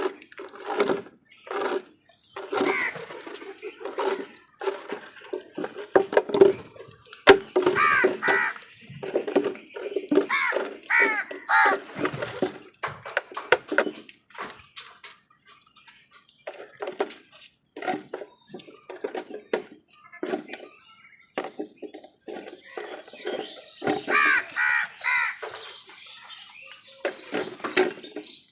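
Crows cawing again and again in clusters of short calls, with brief gaps between bouts; the loudest runs come about eight to twelve seconds in and again near the end.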